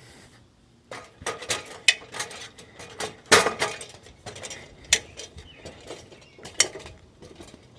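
Roofing work: an irregular run of sharp knocks, clanks and clinks, metal-sounding, with several loud strikes from about a second in until near the end.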